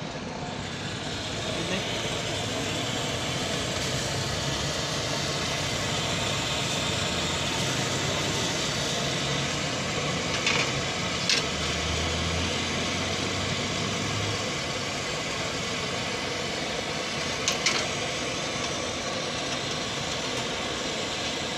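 Steady background noise at a street-food griddle stall, with a low engine-like hum and a few sharp clinks, twice about ten seconds in and twice close together later on.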